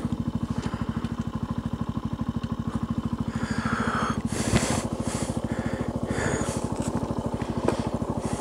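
Benelli TNT 125's single-cylinder four-stroke engine idling with a steady, even beat of about a dozen pulses a second. A few brief scratchy noises come over it around the middle.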